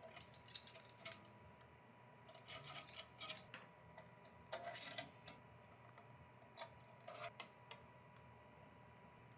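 Faint, irregular metallic clicks and ticks in a few short clusters: a hex key turning a stainless steel cable-railing turnbuckle body while locking pliers hold the cable's swage stud.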